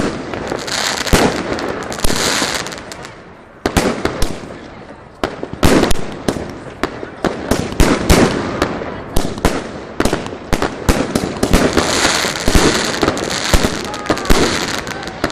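Jorge fireworks cake firing: a rapid, irregular series of sharp launch thumps and shell bangs, with stretches of crackling hiss from the bursting stars. The shots briefly thin out about three to five seconds in, then pick up again.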